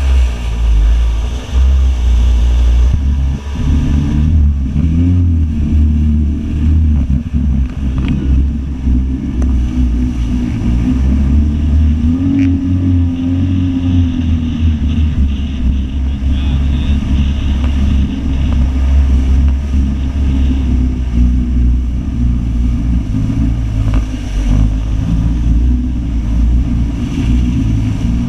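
Jet ski running at speed, its engine droning steadily under heavy wind buffeting on the microphone and rushing water; the engine pitch rises and falls once near the middle.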